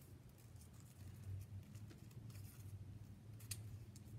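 Faint crackling of a construction-paper strip being creased back and forth in an accordion fold, a few soft crinkles over a low steady hum.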